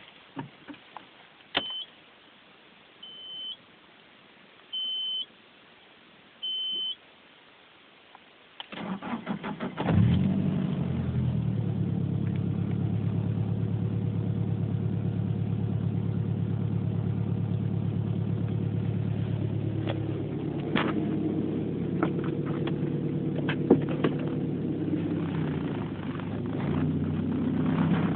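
A car is started: four short high electronic beeps, then the starter cranks for about a second before the engine catches about ten seconds in. The engine then runs at a steady idle with a few sharp clicks, a sound the owner questions as a possible abnormal noise.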